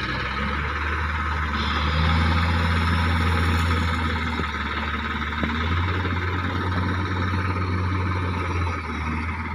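Diesel engines of a Sonalika tractor and a wheel loader running, a steady deep hum whose pitch shifts slightly about halfway through.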